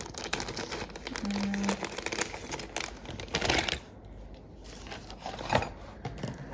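Small repair tools scraping, clicking and prying at the inside of an opened iPhone X, with crinkly rustling as parts are pulled out.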